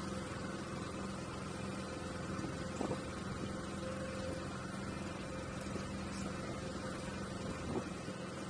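Boat motor idling with a steady hum, and a couple of faint knocks.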